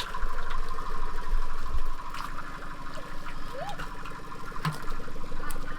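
A small engine running steadily at an even speed, with faint distant voices and a few light clicks over it.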